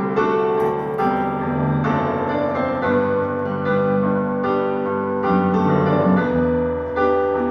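Electric piano and a clean electric guitar playing a slow chord progression together, a new chord struck about once a second and left to ring.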